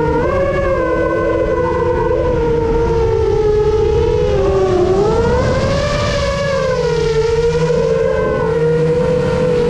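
The motors of a 7-inch FPV quadcopter whining in flight: several tones that slide up and down separately as the throttle changes, with a swell in pitch about halfway through.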